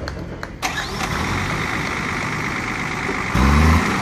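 Motor vehicle engine running, its revs climbing, with a louder surge of rising engine pitch about three and a half seconds in.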